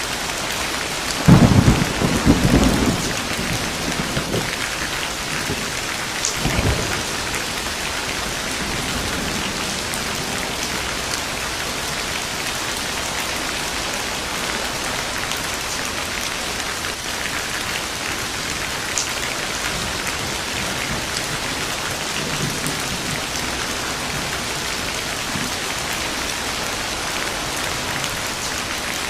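Steady heavy rain falling, with a sharp thunderclap about a second in that rumbles off over the next couple of seconds, and a second, weaker rumble of thunder a few seconds later.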